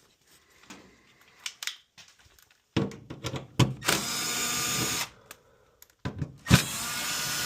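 Power drill/driver backing out the two 1/4-inch screws that hold a furnace limit switch: two runs of motor whine of about two seconds each, after a few light handling clicks.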